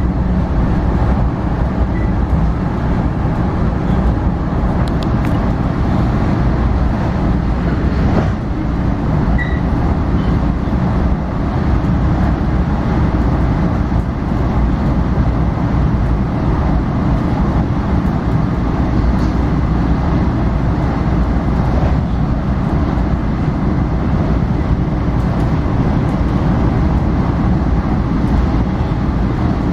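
Steady rumble of a moving commuter train, heard from inside the passenger car.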